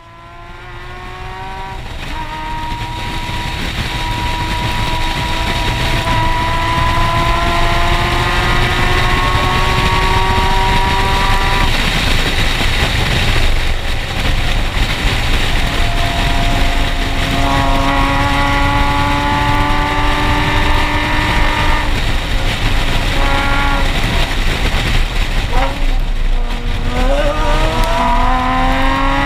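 Nissan 370Z's 3.7-litre V6 at hard throttle through a Tomei aftermarket exhaust, its pitch climbing through each gear and dropping at every upshift. Near the end the revs fall and then climb again. Steady wind noise sits under the exhaust note throughout.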